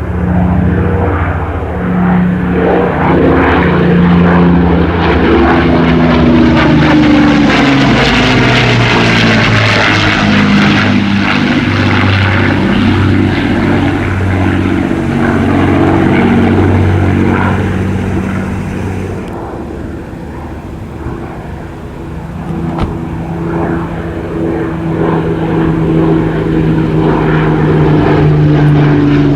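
Rolls-Royce Merlin V12 piston engines of WWII propeller fighters flying past, a steady deep drone. It swells to full loudness over the first several seconds and fades somewhat around twenty seconds in, then builds again with the engine note sinking slightly near the end.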